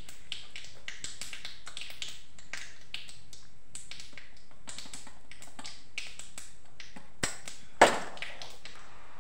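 Spices crackling in hot oil in an iron kadhai: irregular sharp pops several times a second over a faint sizzle. A louder clack comes near the end.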